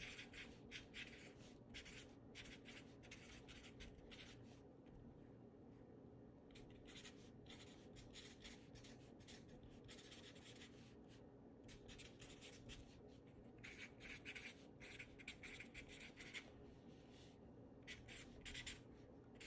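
Black felt-tip marker writing on paper, faint: runs of short strokes broken by brief pauses as letters are formed. A faint steady low hum lies underneath.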